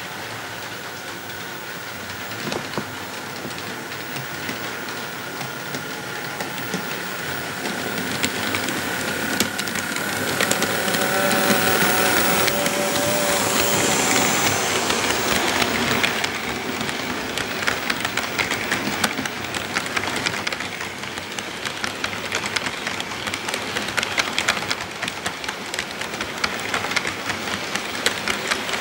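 Bachmann HO-scale Soo Line GP40 model diesel locomotive running past, its electric motor whining steadily and growing louder until about twelve to sixteen seconds in. After that the freight cars roll by with a rapid clicking of wheels over the track joints.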